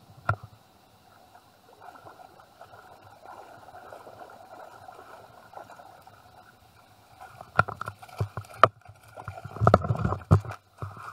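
Shallow reef water sloshing and gurgling around a wader's legs. There is a sharp knock just after the start and a run of louder splashes and knocks in the last few seconds.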